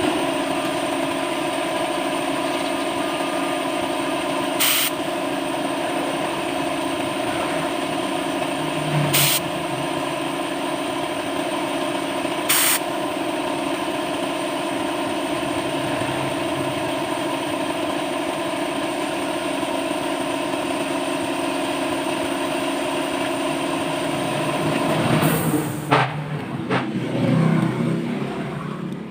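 A machine starts abruptly and runs loudly and steadily, with a hum of several steady tones over a rushing noise. Three sharp clicks cut through it in the first half. Near the end the sound turns uneven and then drops away.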